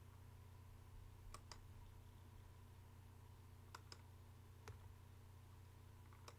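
Faint clicks of computer input during work in a 3D program, about six of them, some in quick pairs, over a low steady hum.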